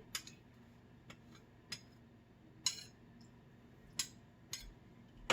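A spoon knocking and clinking against a cooking pot in about seven short, separate taps, the one near the middle a little longer and louder.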